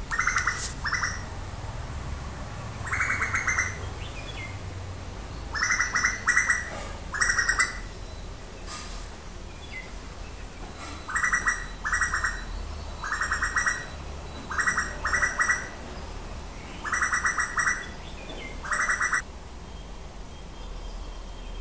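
Asian koel calling: a string of short, rapidly pulsed calls, each about half a second long and often in pairs, repeated about a dozen times.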